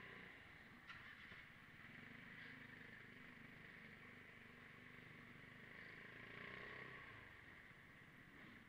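Faint running of a Vespa GTS 300 scooter's single-cylinder four-stroke engine at low speed, a low, wavering engine note under a steady hiss.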